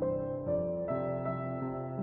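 Background music of sustained chords, the notes shifting a few times.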